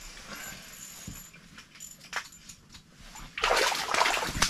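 Water splashing in an ice-fishing hole as a hooked fish thrashes while being landed. A few faint ticks come first, then loud, choppy splashing starts about three and a half seconds in.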